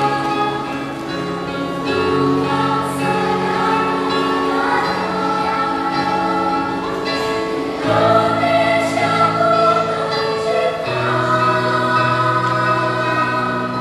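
Children's choir singing in several parts, holding sustained chords that shift every few seconds.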